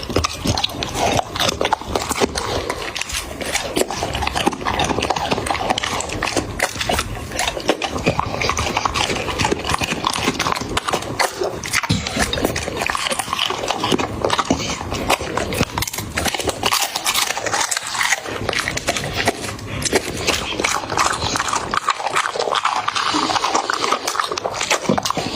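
A puppy eating, its mouth making a continuous run of quick clicks and smacks.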